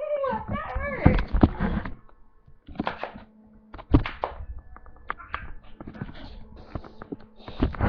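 Irregular thumps and knocks, a cat scuffling and playing close to the microphone, with a short falling cry at the very start.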